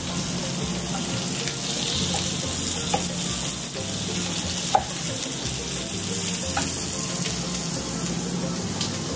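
Oyster steak and chunks of carrot, beet and onion sizzling steadily in a hot cast-iron skillet over a gas flame, searing at high heat. A few faint clicks, with a sharper one about halfway through.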